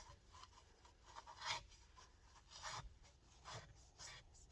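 Near silence, broken by a few faint, short scrapes and rubs of parts being handled.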